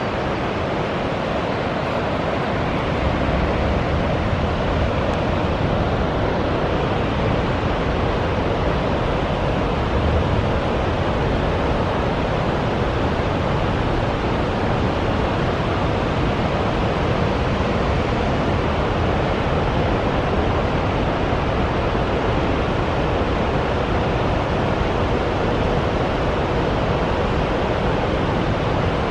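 Steady roar of water pouring through a dam's spillway.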